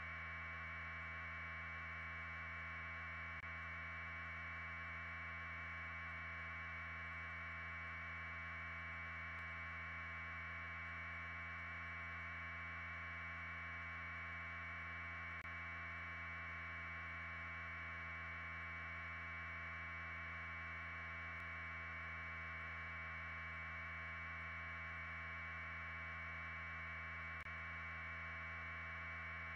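A steady, unchanging hiss in a narrow band over a low electrical hum, with no distinct events.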